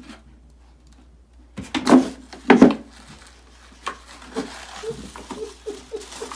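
Plastic wastebasket knocking and scraping as a cat climbs into it and rummages: a few loud knocks about two seconds in, then a run of lighter, quicker knocks and rubbing.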